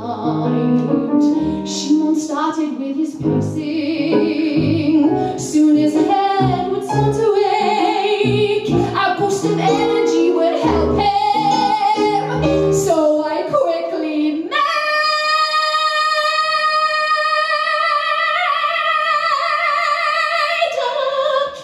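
A woman singing a musical-theatre song with piano accompaniment. About fourteen seconds in she goes into one long, loud held high note, which she sustains until near the end.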